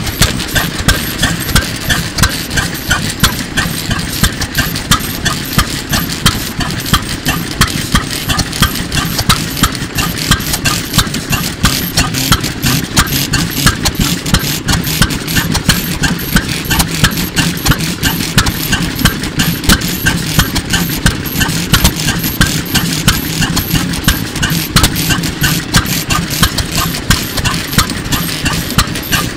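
Otori 3 hp single-cylinder hopper-cooled stationary engine of around 1940, running steadily with a fast, even beat of sharp strokes over a low hum.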